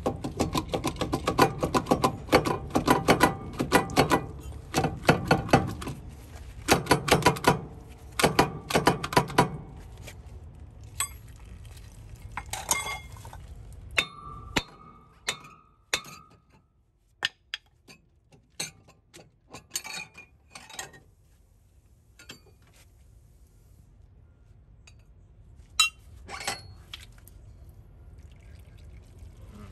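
Steel semi-truck wheel hub clanking and rattling as it is rocked and worked off its axle spindle, with dense clinking for about the first ten seconds. Then come scattered metal knocks, and a heavier knock near the end as the hub is set down.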